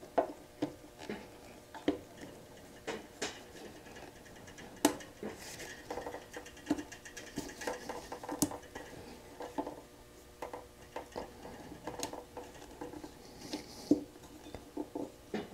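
Irregular light clicks, taps and scratches of hands handling plastic electrical parts and wiring connectors on a motorcycle frame, with a few sharper knocks.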